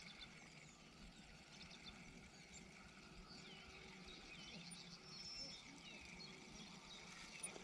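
Near silence with faint birdsong: scattered short chirps and whistles from small birds.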